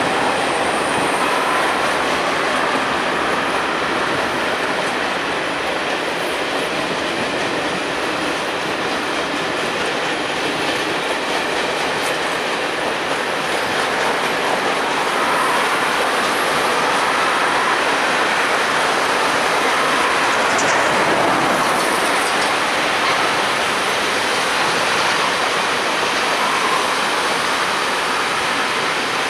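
Freight train of empty flat wagons rolling past through the station, a steady continuous rolling noise that swells slightly in the last third.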